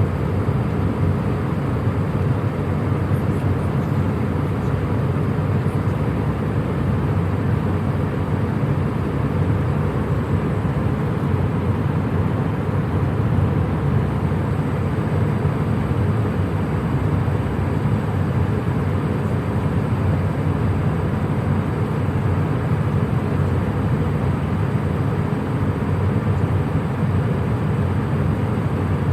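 Passenger jet cabin ambience in flight: a steady, even rumble and rush of engine and airflow noise, heaviest in the low end, with a faint high whine held throughout.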